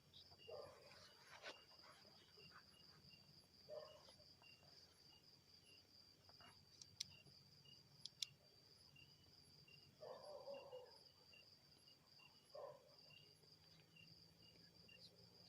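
Faint, steady chirring of insects, with a second, lower chirp pulsing at an even rate. A few brief faint low sounds come and go, and two sharp clicks sound about seven and eight seconds in.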